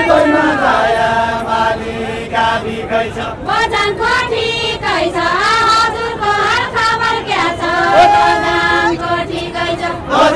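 A group of voices singing a Deuda, the far-western Nepali folk song, in a chanting melody of held notes that bend up and down.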